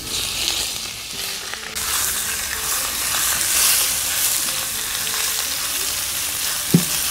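Olive oil sizzling on a hot steel cooking disc, then a louder, fuller sizzle from about two seconds in as chunks of beef and pork are tipped onto it to sear and are stirred with a spatula. One short knock near the end.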